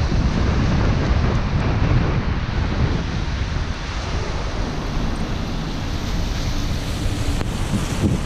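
Steady rushing noise of a car driving on a wet road in rain: tyre hiss on wet pavement with wind buffeting the microphone, easing slightly in the middle.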